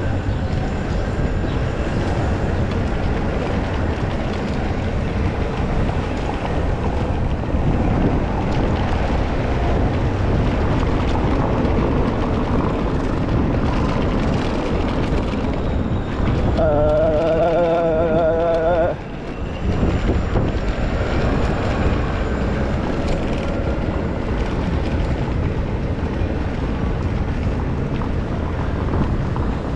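Steady rushing wind noise on the microphone of a camera riding along on a moving bicycle. About halfway through, a wavering pitched tone sounds for about two seconds.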